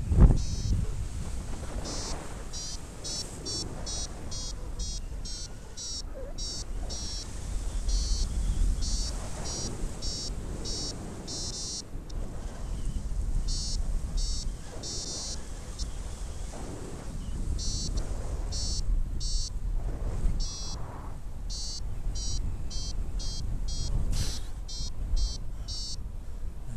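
Paragliding variometer beeping in runs of short, high-pitched beeps, several a second, with pauses between the runs: the vario's climb tone, signalling rising air. Wind rushes steadily on the microphone underneath.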